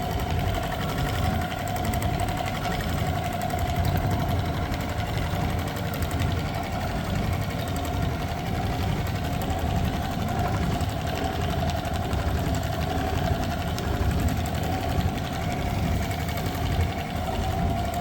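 CNC quilting sewing machine stitching a pattern through upholstery foam, its needle running at a fast, steady rate with a constant mechanical hum.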